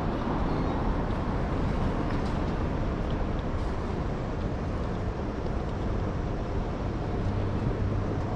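Steady rumble of passing vehicles with a low hum underneath and a few faint ticks.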